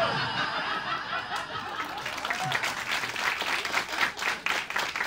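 Club audience laughing, then breaking into applause that thickens over the last few seconds.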